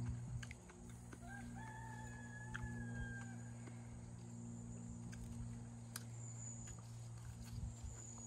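A rooster crowing: one long call that starts about a second in, over a steady low hum.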